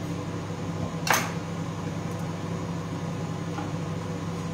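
Steady low hum of a microwave oven running as it precooks asparagus, with one short sharp scrape of a knife on a sweet potato being peeled about a second in.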